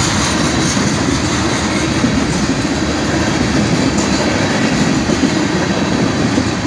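Freight train of tank cars rolling steadily past a grade crossing: the continuous rumble and clatter of wheels on the rails.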